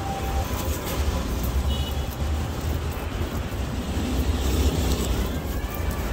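Steady low rumble of nearby road traffic, with faint scraping of a cleaver worked along a gourami fish on a wooden chopping block.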